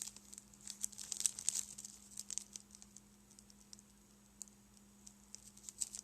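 Small plastic bags of 3D-printed model parts being handled, crinkling and rustling in a quick flurry for the first couple of seconds, then only occasional faint ticks.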